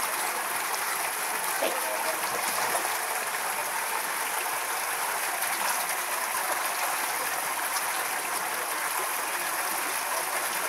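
Steady rushing background noise, like running water, holding even throughout with no clear single events.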